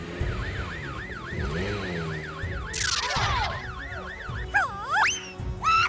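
Fire truck siren yelping in a fast up-and-down wail, about four cycles a second, for the first half. A sudden whoosh comes about three seconds in, followed by a few loud sliding pitched tones near the end.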